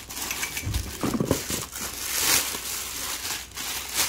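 Plastic packaging crinkling and rustling in bursts as wrapped bags and straps are handled, with a low thump about a second in.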